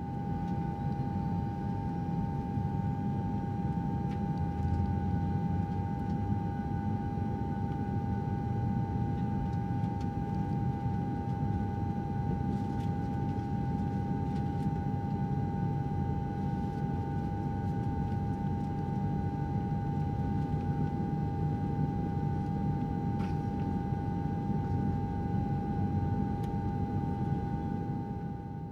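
Jet airliner cabin noise: a steady low rumble with a constant high whine above it, unchanging throughout.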